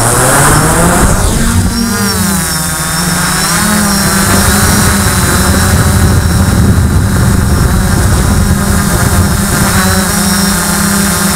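DJI F450 quadcopter's electric motors and propellers, heard close up from the camera mounted on the frame. The pitch rises over the first two seconds as it lifts off, wavers briefly, then holds steady as it climbs and hovers.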